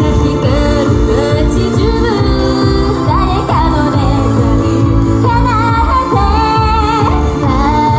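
Japanese idol pop song performed live: female voices singing a melody over music with a steady beat.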